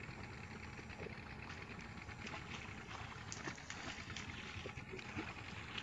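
Faint, steady background noise with scattered small clicks.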